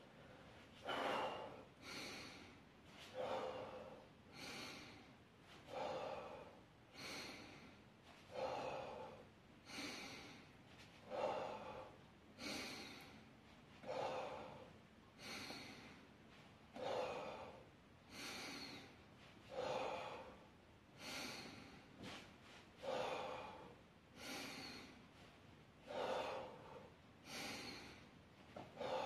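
Heavy, rhythmic breathing from exertion during dumbbell shoulder raises: a strained breath out and in with each repetition, about one breath every second and a half.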